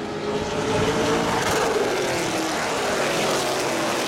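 A pack of late model stock cars racing past at full throttle, several engines at once. The sound builds over the first second, and the engine pitch climbs, then drops as the cars go by.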